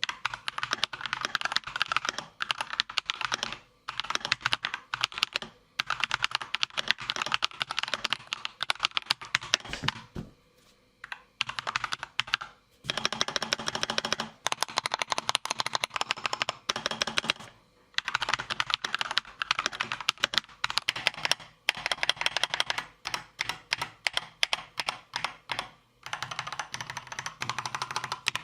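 Fast typing on an Akko 3098B mechanical keyboard fitted with stock, unlubricated linear switches: a quick clatter of keystrokes in several separate runs with short pauses between them.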